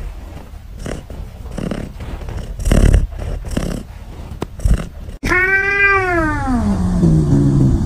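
A cat's long drawn-out meow about five seconds in. It starts high and slides down in pitch over a second and a half, then trails into a low moan. Before it come soft, irregular rustling noises.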